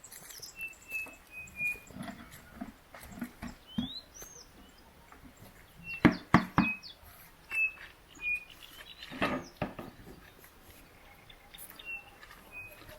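Birds chirping with short, repeated high calls, over knocks and clatter of wooden beehive frames and boxes being handled. The loudest are three quick knocks about six seconds in and another near nine seconds.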